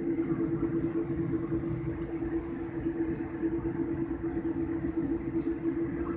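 Jet airliner cabin noise while taxiing: the engines at low taxi power give a steady hum with one held tone, over a low rumble from the rolling aircraft.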